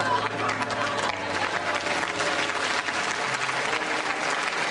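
An audience applauding: a dense, steady crackle of many hands clapping, with a murmur of voices under it.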